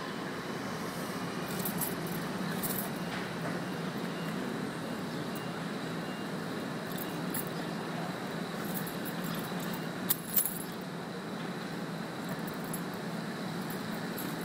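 City street traffic noise: a steady hum of passing cars. Scattered light high clicks run over it, with two sharp clicks close together about ten seconds in.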